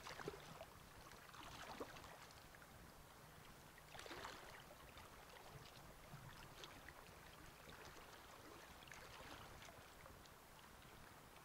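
Faint flowing river water, with a few brief louder swishes, the clearest about four seconds in.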